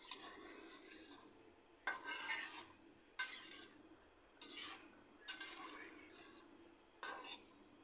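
A metal spatula scrapes and stirs through watery soybean-chunk and potato curry in a metal karahi. There are about five short scraping strokes, a second or so apart.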